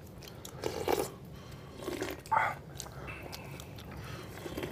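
People eating boiled pork chunks and sour cabbage soup up close: chewing, with scattered small clicks and smacks and a few louder mouth sounds.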